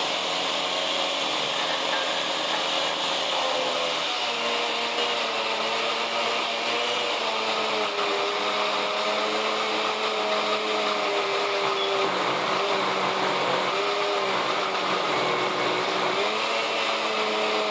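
Countertop blender running steadily, puréeing chopped onion, green pepper, garlic and olive oil into sofrito. Its motor hum drops a little in pitch about four seconds in and then wavers.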